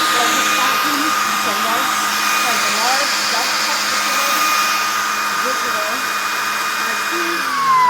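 Shark cordless stick vacuum running with a steady high motor whine over the rush of air. Near the end the whine starts falling in pitch as the motor spins down.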